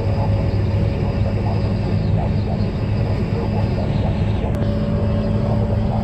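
Steady road and engine noise inside a truck's cab while driving on a freeway: an even low drone that does not change.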